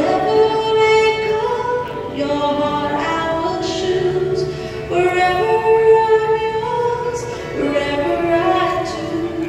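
A woman singing a slow processional song, holding long notes in phrases that step up and down in pitch.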